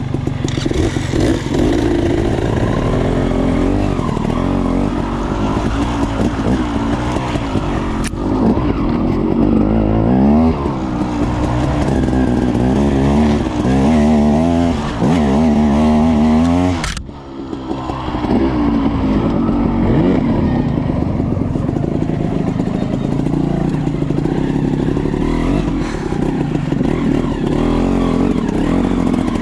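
KTM dirt bike's engine running and revving up and down as the bike is ridden, with the engine note dropping off briefly about seventeen seconds in before picking back up.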